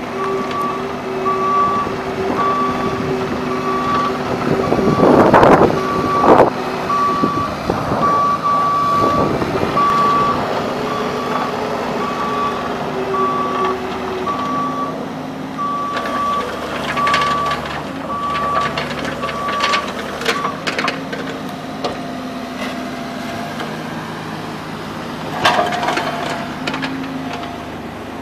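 Bobcat E45 compact excavator running, its travel alarm beeping at a steady on-off pace that stops about two-thirds of the way through. The engine is heard throughout, with a loud burst of machine noise around the fifth second and another near the end.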